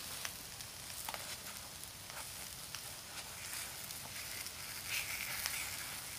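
Takoyaki batter sizzling in the cups of a takoyaki plate, with scattered light clicks as a skewer turns the balls. The sizzle swells briefly about five seconds in.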